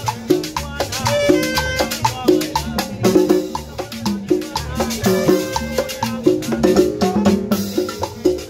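Live Latin dance band playing: congas and timbales keep a steady, driving beat over a repeating upright-bass line, with a melody line on top.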